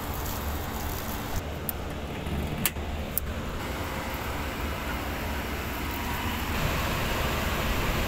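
Steady low rumble and rushing of rooftop air-conditioning machinery running, with a few sharp clicks in the first half.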